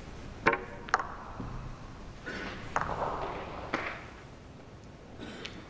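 Snooker shot being played: sharp clicks of the cue tip on the cue ball and of balls striking each other. Two come about half a second apart near the start and two more follow a few seconds in, over a short rise of crowd noise in the arena.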